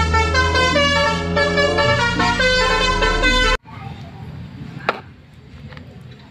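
Telolet bus horn playing a melody of held multi-tone horn notes that step up and down in pitch over a steady low drone, cutting off suddenly about three and a half seconds in.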